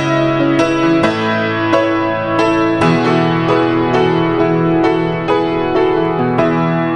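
Piano music at a slow, even pace: single notes struck about every half second over held chords.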